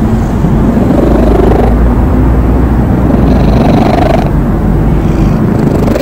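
Stray cat purring: a steady, continuous low rumble.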